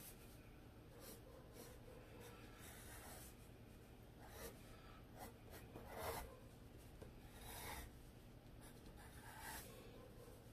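A pencil sketching on paper: faint, irregular scratchy strokes, with a few louder strokes past the middle.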